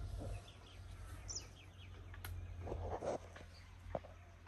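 Faint rural ambience of small birds chirping in short falling notes, with a few sharp clicks and a soft knock about three seconds in, over a low steady rumble.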